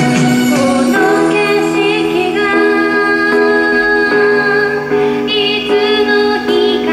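Pop song performed live: a woman singing over instrumental accompaniment, with long held notes.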